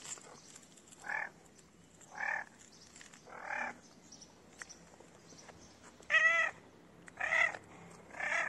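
A stray cat meowing to ask for food: six short meows, three spaced about a second apart, then after a pause three more that are louder.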